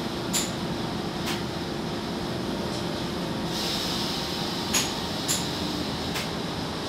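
Asphalt mixing plant machinery running with a steady drone and hum, with a handful of sharp clicks and a brief hiss about three and a half seconds in.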